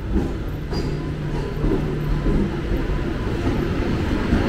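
Mumbai air-conditioned suburban electric train (AC local) pulling into the platform: a steady rumble that grows a little louder as the front car draws alongside, with a steady low hum through the first half.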